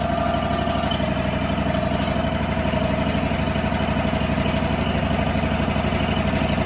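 Portable sawmill's gasoline engine running steadily with an even pulsing beat.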